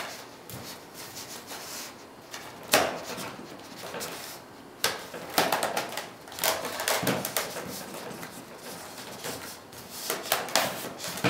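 Foam wing panels of an RC glider being slid along carbon-fibre spar tubes and pushed against the fuselage: rubbing and scraping, with a few sharp knocks and clicks of the parts meeting.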